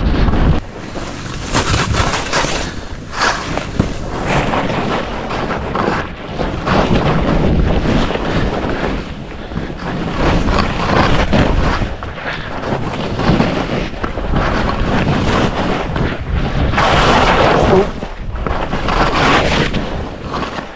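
Skis scraping and hissing over firm, chopped-up snow through a run of turns, the noise swelling and fading with each turn, with wind buffeting the microphone.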